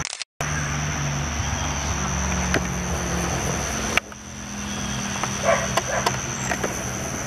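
Steady high-pitched insect drone, cut off briefly at the very start and broken abruptly about four seconds in. A few short, louder calls come a little past the middle.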